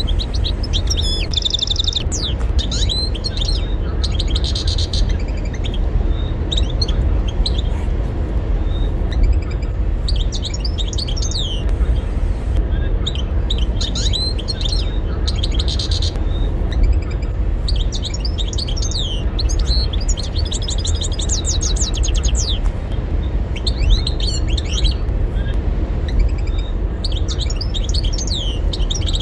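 European goldfinch singing: rapid twittering phrases of high, fast-sliding notes, coming in bursts with short pauses between them, over a steady low rumble.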